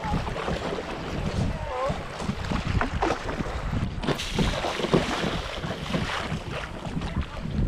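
Paddle strokes splashing and water sloshing against the nose of an inflatable stand-up paddleboard gliding through shallow floodwater, with wind buffeting the microphone.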